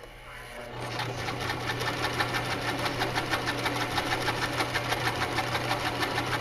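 Janome HD1000 sewing machine sewing a straight stitch: the motor winds up over the first second, then runs at a fast, steady pace with rapid, even needle strokes over a low hum.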